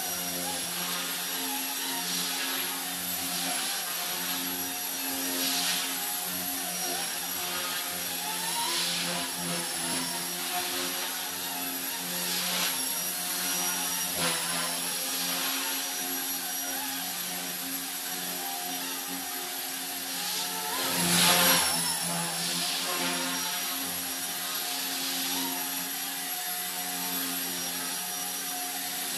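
Blade mCP X brushless micro collective-pitch RC helicopter in flight: a steady motor whine and rotor buzz whose pitch wavers with the throttle, plus a brief louder surge about two-thirds of the way through.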